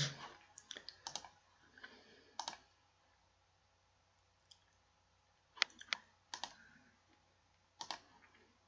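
Faint computer mouse clicks, single and in quick pairs, scattered through with quiet gaps between them.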